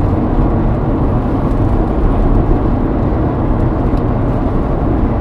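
Steady road and engine noise heard from inside a car's cabin while driving on the highway.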